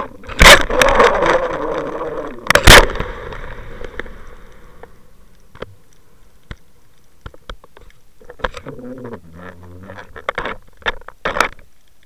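An underwater camera on a fishing line is knocked and scraped as it is jerked about in the water. Two hard knocks in the first three seconds come over a rushing water noise that fades out. Scattered clicks follow, then a brief muffled hum about halfway through and a few more knocks near the end.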